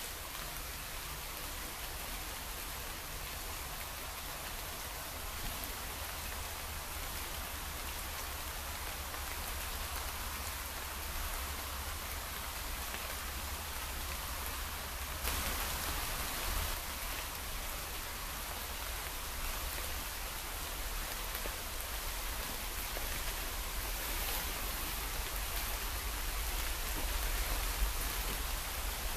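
Heavy downpour: a steady hiss of rain that grows heavier about halfway through and again near the end.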